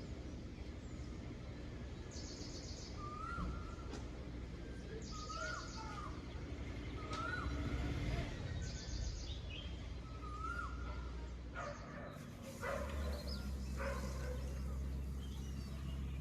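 Birds calling over a steady low background rumble. One bird gives a short rising-and-falling call every two to three seconds, and quick bursts of high chirps come in between.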